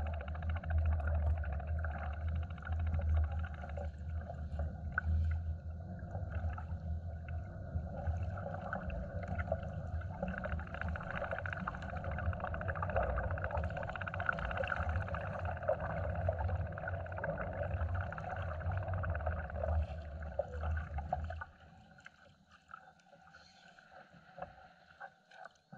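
Water noise around a kayak hull with a steady low rumble, cutting off sharply about 21 seconds in.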